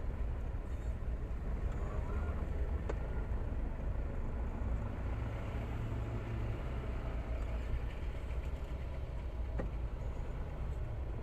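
A motor vehicle's engine running with a steady low rumble and road noise.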